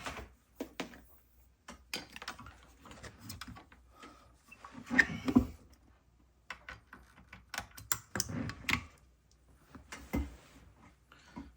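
Irregular clicks and plastic clatter in short clusters, from the Line 6 FBV3 foot controller being handled and its pedal and switches worked while a volume-pedal repair is tested.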